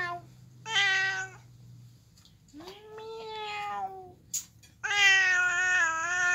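Orange-and-white domestic cat meowing over and over: four calls, a short one near the start and a softer drawn-out one in the middle, the last long and loud. A sharp click about four seconds in.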